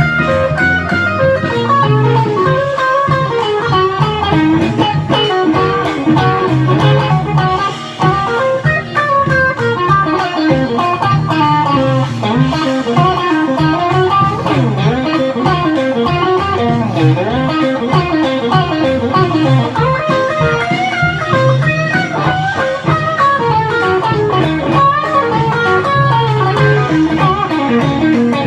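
Electric guitar, a Fender Stratocaster, playing a bluesy lead solo: quick runs of single notes with frequent string bends.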